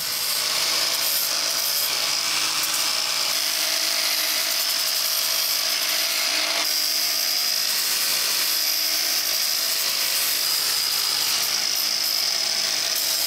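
Angle grinder running steadily as it grinds the sharp edges off a sheet-steel cover plate: a continuous grinding hiss with a high, steady whine.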